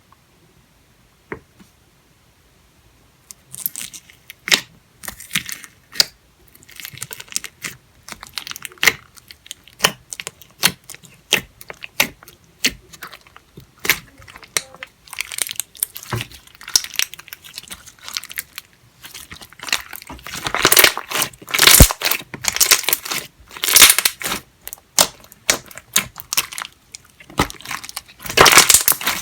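Slime being squeezed, stretched and pressed by hand, giving irregular crackling, popping clicks; quiet for the first few seconds, then busier and louder for the last third.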